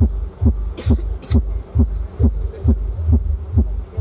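Heavy bass beat pounding through a large outdoor sound system's 30-inch subwoofers, one deep thump about twice a second in a steady rhythm. Two brief crackles about a second in.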